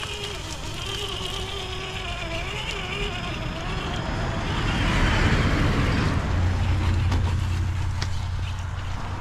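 Traxxas TRX-4 RC crawler's electric motor and geared drivetrain whining in low range, the pitch wavering as the throttle changes. About five seconds in a rush of hissing noise swells up, followed by a steady low rumble.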